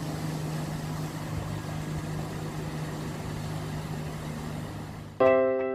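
Small fishing boat's engine running steadily as it motors past, a low even hum under a hiss of water and air. Near the end, piano chords come in.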